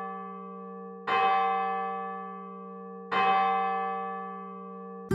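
A church bell tolling one note, struck about a second in and again about three seconds in, each stroke ringing out and slowly fading; it opens on the fading ring of an earlier stroke.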